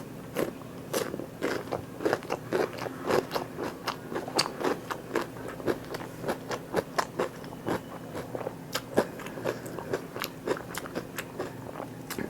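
Close-miked eating sounds: a person biting and chewing food, with an irregular run of sharp crunchy and wet clicks, about two to three a second.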